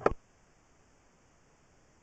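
A single short click right at the start, then near silence with only a faint hiss.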